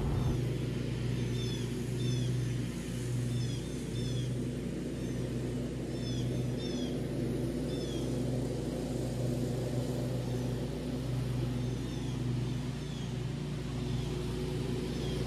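Riding lawn mower's engine running with a steady low drone that swells and dips slightly, while birds chirp in short falling notes.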